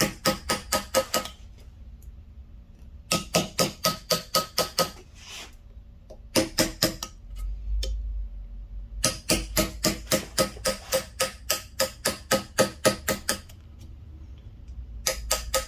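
Wooden mallet tapping a carving chisel into zelkova wood for relief lettering: quick even strikes, about four or five a second, in runs of one to four seconds separated by short pauses.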